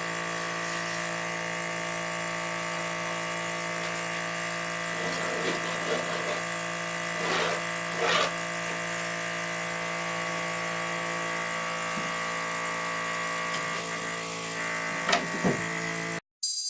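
Steady hum of the Flatmaster drum sander and the vacuum pump running, with a few brief knocks and handling sounds. The hum cuts off abruptly near the end.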